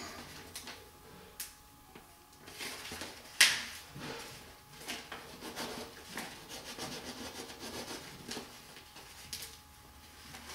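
Paper backing sheet of a vinyl wall decal rustling and crackling as it is peeled back from the top. A sharp tap stands out about three and a half seconds in.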